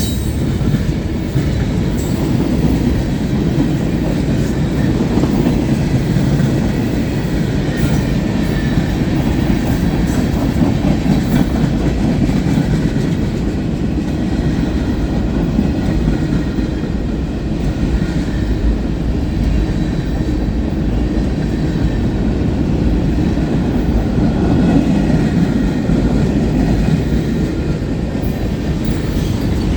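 Freight train cars rolling past at speed: a loud, steady rolling noise of steel wheels on rail, with rattling and clicking from the cars and the track joints.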